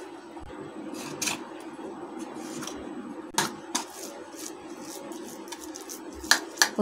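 A steel spoon and a wooden spatula clicking and scraping against a thin aluminium tray as a thick, crumbly sweet mixture is scraped in and pressed down. There are scattered sharp clicks, the loudest about three and a half seconds in, with a run of small ticks near the end, over a low steady hum.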